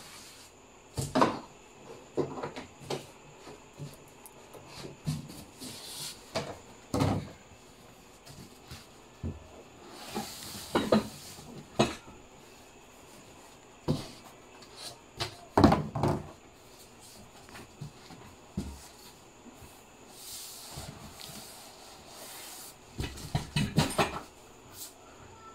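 Parts of a boxing punching-ball set being taken out of a cardboard box: irregular knocks and thumps of hard plastic pieces against the box, with a few short stretches of rustling packing.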